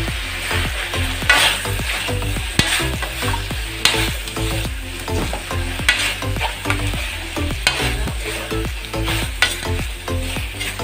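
Metal spatula scraping and stirring around a metal wok, turning chicken livers, gizzards and boiled eggs through a thick, cooked-down adobo sauce, with a light sizzle; a sharp scrape comes about every second or so.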